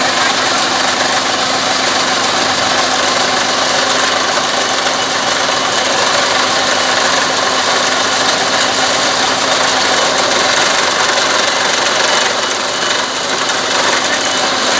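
Water-well drilling rig running steadily, with muddy water gushing out of the borehole. The noise stays even throughout, with a low steady hum under it.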